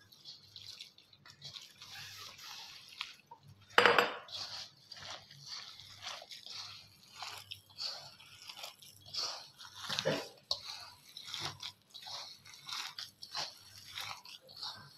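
A hand mixing gram flour, spices and chopped spinach, onion and potato in a stainless steel bowl: repeated crunching, squishing strokes, one or two a second, with a louder knock about four seconds in.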